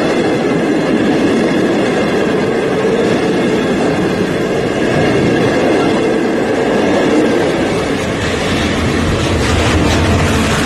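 Steady rumble and wheel-on-rail noise of two trains running side by side, heard from the open window of a moving train as passenger coaches go by. From about eight seconds in a deeper low hum joins as the locomotives come alongside.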